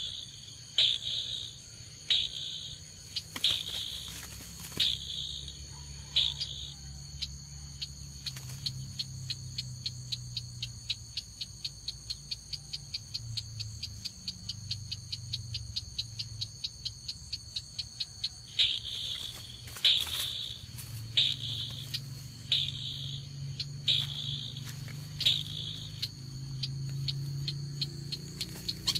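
A crake's call repeating over and over: a fast run of sharp ticking notes, with a louder high note about every second and a half that drops out for a stretch in the middle and comes back, over a steady high insect drone. It is the lure call of a bird-trapping speaker.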